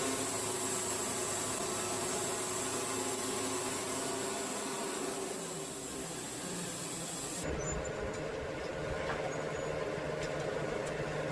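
Wood-Mizer LT70 band sawmill cutting red cedar, the blade giving a steady hiss over the running engine. About seven seconds in the cutting hiss stops abruptly, leaving the mill's engine running at a steady lower hum.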